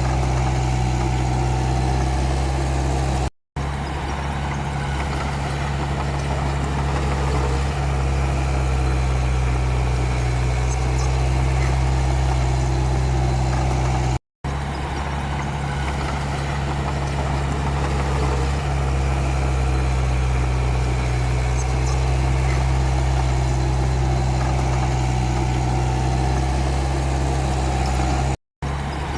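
Komatsu D31P bulldozer's diesel engine running steadily with a deep, even drone. The sound cuts out for a split second three times.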